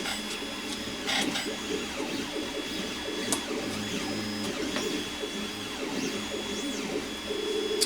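Small electric fan motor running with a steady hum, with light clicks and rustles from parts being handled.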